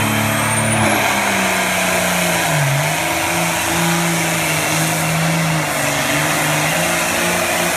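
Diesel pulling tractor running at full throttle under heavy load as it drags a weight-transfer sled down the pulling track. The engine note dips briefly about three seconds in, then holds steady.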